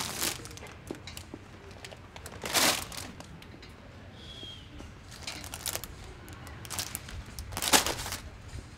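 Supermarket handling sounds: snack packets crinkling and a shopping trolley being pushed, heard as a few short rustling bursts over a steady low background, the loudest near the end.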